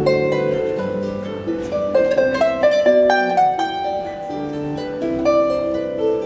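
A large wooden floor harp being played by hand: plucked strings ringing and overlapping, a melody over lower sustained notes, with a quicker, louder run of notes in the middle.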